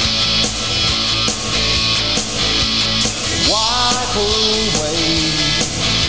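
Rock music with a steady beat. A little past halfway, a lead line slides up in pitch, holds, and then steps down.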